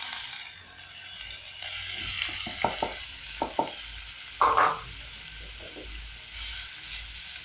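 Raw minced beef sizzling steadily in hot cooking oil in a frying pan, just tipped in, with a few short knocks around the middle.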